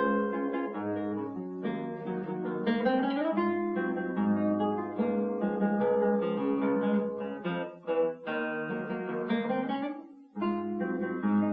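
Solo classical guitar playing a lively fingerpicked piece, with a note sliding up about three seconds in and a short break near the end.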